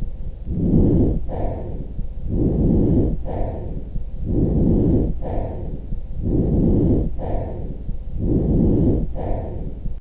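Breath sounds heard through a stethoscope: a low rushing noise that swells and fades with each breath, about five breaths, roughly one every two seconds.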